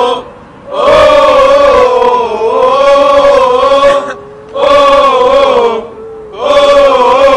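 Chant-like male singing of an Arabic Libyan revolution song, loud, in three phrases with short pauses between them.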